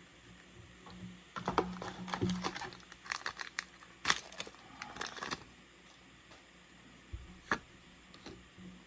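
Foil booster pack wrapper crinkling and tearing open, a flurry of crackling for a few seconds, followed by a couple of light clicks.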